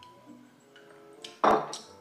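Soft background music with a single sharp thump about one and a half seconds in.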